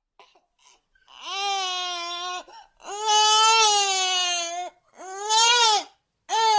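Infant crying: a few soft whimpers, then three long, drawn-out wails separated by short breaths, with another cry starting near the end.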